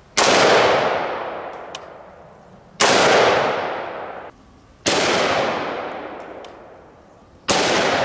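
AR-15 rifle firing 5.56 rounds: four single shots a couple of seconds apart, each a sharp crack followed by a long echo that dies away.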